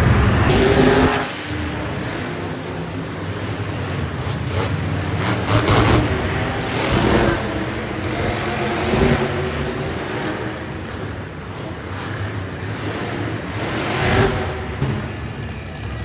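Monster truck engines revving and surging inside an arena, after a loud burst in the first second that drops off sharply.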